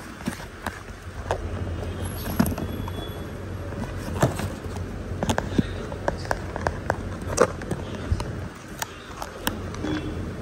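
Workshop background noise: a steady low hum with scattered, irregular sharp clicks and knocks.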